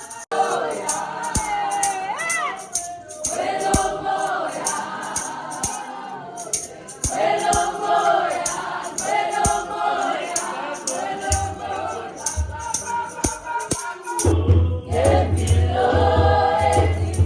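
Choir singing with sustained, many-voiced notes over light percussion; a heavy bass comes in about two-thirds of the way through and grows louder near the end.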